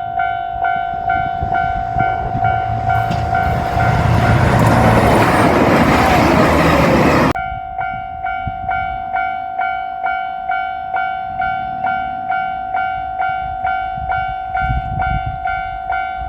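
Level crossing warning bell ringing in a steady repeat, about every 0.6 s. A 2700 series limited express diesel railcar passes with a rumbling rush that builds over the first few seconds, drowns the bell, and cuts off suddenly about seven seconds in, leaving the bell ringing on.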